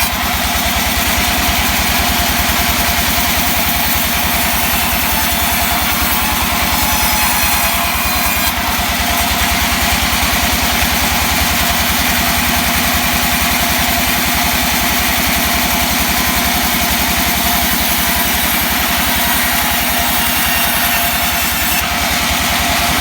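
Small engine of a wood-cutting saw running steadily at a constant speed without cutting.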